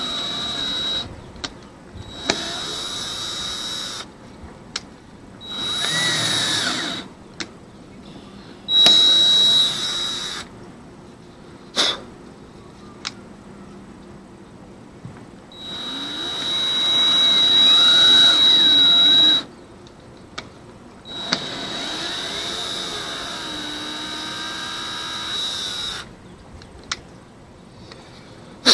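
Power drill run in six short bursts of one to four seconds, its pitch rising and falling with trigger speed, working holes for 1/4-20 threads in a fibreglass winch mount. Short sharp clicks sound between the bursts.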